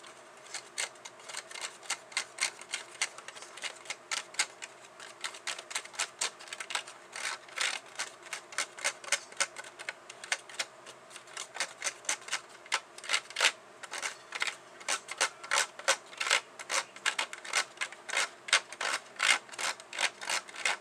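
A small plastic utensil stirring a powder-and-water candy mix in a plastic tray compartment, clicking and scraping against the plastic in quick, uneven taps. The taps get louder and closer together from about a third of the way in.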